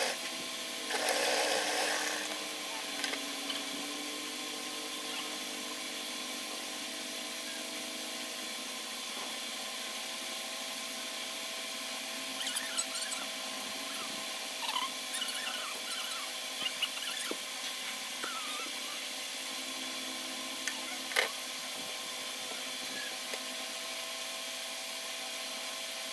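An electric sewing machine stitches in a short run about a second in, then stops. A steady hum follows, with light rustling and small clicks as the fabric is handled, and a sharp click about three-quarters of the way through.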